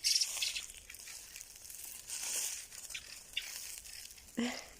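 Dry grass rustling and crinkling, in scratchy bursts, loudest at the start and again about two seconds in. A brief low pitched sound comes near the end.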